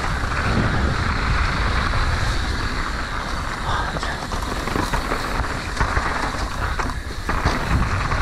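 Mountain bike descending a dirt singletrack: wind buffeting the camera microphone over the steady hiss of knobby tyres rolling on damp, tacky dirt, with small clicks and rattles from the bike. The sound eases briefly about seven seconds in.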